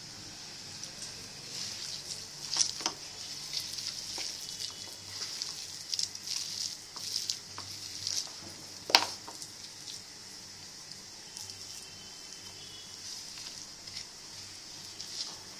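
A hand mixing thick gram-flour batter with chopped onions in a bowl: wet, crackly squishing, with two sharper clicks, about two and a half seconds in and about nine seconds in.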